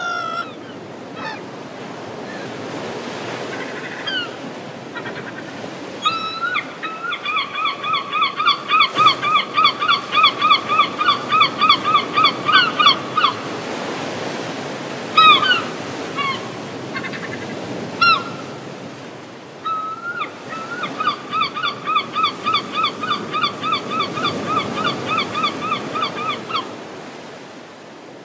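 Gulls calling: scattered single cries, then two long runs of rapid, evenly repeated calls at about four a second, each lasting several seconds. A steady background hiss of wind and water runs under them.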